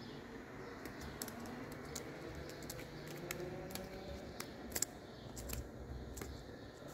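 Young magpie's claws and beak tapping on a wooden desk and paper: scattered, irregular light clicks, with a pair of louder taps about two-thirds of the way through.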